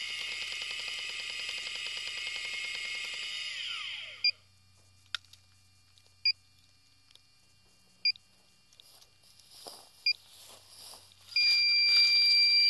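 A steady electronic whine from the crashed tricopter falls away about four seconds in. A short two-tone beep then sounds every two seconds or so, four times. Near the end it turns into a continuous loud beeping tone at the same pitches.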